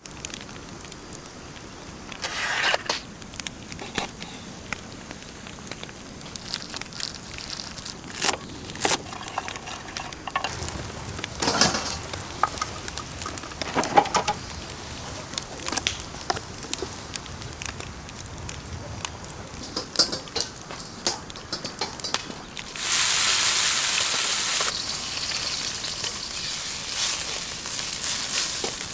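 Cooking sounds of pork and garlic chives being made: scattered knocks and clicks, then about three quarters of the way through a loud sizzle breaks out as food goes into the hot pan and keeps frying.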